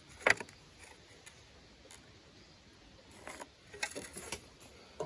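Light handling sounds: a sharp knock about a third of a second in, then a cluster of short scrapes and clicks around three to four seconds in.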